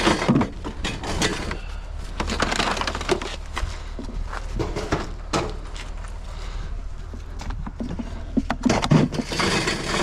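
Hands rummaging through curbside junk: irregular clatter, knocks and crinkling of plastic items and electrical cords being pulled and handled, over a steady low hum.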